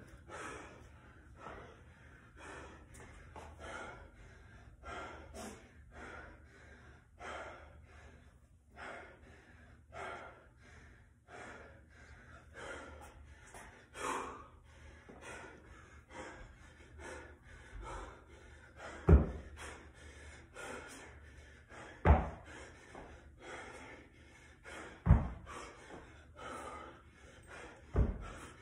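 A man breathing hard, gasping for air with each breath while resting mid-workout. From about two-thirds of the way through, a heavy thud comes about every three seconds, the 50-pound dumbbell striking the rubber mat as dumbbell snatches resume.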